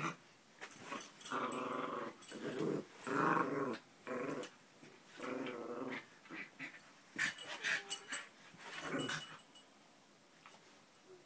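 Two small dogs play-fighting, with repeated short growls and scuffling on a fabric dog bed. The growling stops about nine and a half seconds in.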